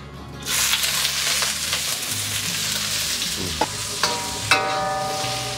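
Pieces of bitter melon sizzling as they hit a hot oiled wok. They are stir-fried with a metal wok spatula that scrapes and clinks against the wok.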